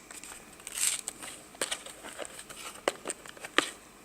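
Plastic RAM compartment cover on the underside of a notebook being worked into place by hand: scattered light clicks and scrapes of plastic against plastic as it is fitted.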